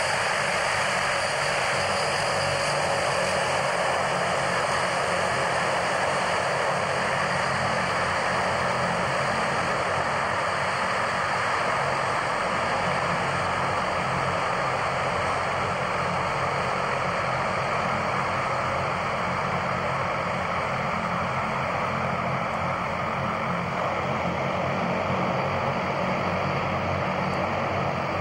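Canadair CL-44's four Rolls-Royce Tyne turboprop engines running at taxi power as the aircraft rolls along the taxiway, a steady, unchanging engine noise.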